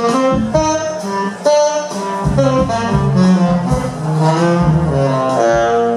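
Live jazz-fusion band playing: a horn melody of short and longer held notes over bass and drums.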